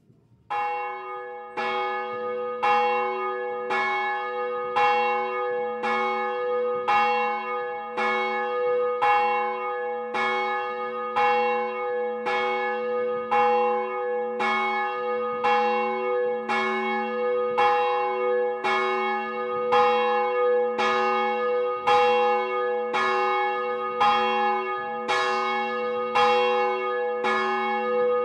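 A single swinging bronze church bell ringing, its clapper striking about once a second. The first stroke comes about half a second in, and the bell's tone rings on between the even strokes.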